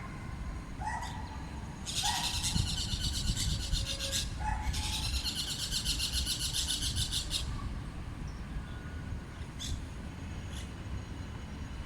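Birds in the treetops calling: a few short chirps, then two long, rapid, harsh trills, the second running about three seconds. A steady low rumble of road traffic runs underneath.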